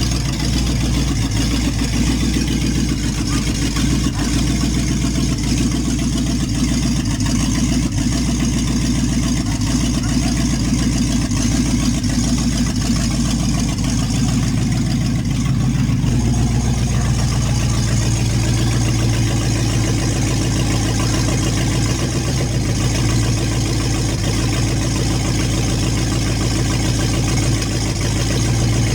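An engine running steadily at idle, its note shifting lower about halfway through.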